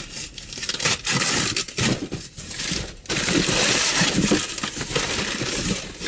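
Cardboard shipping box being torn open and its contents handled: tearing, crinkling and scraping of cardboard and packaging, densest in the second half.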